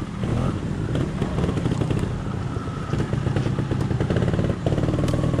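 Trials motorcycle engine running hard and uneven with throttle blips as it climbs, picking up again near the end.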